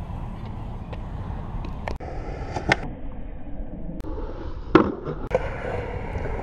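Skateboard wheels rolling on concrete with a steady low rumble, broken by a handful of sharp clacks of the board on the ground and a ledge; the loudest clack comes about three-quarters of the way through.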